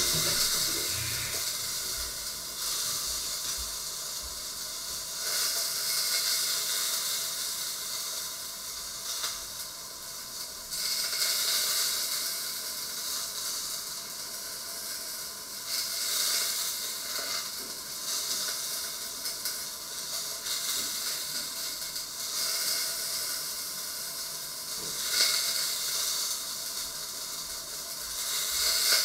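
Food frying in a lidded pan on the stove: a steady sizzle and hiss that swells and fades every few seconds.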